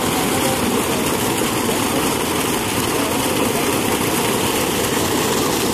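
Steady rush of water pouring from a solar tube well's discharge pipe and splashing onto the ground.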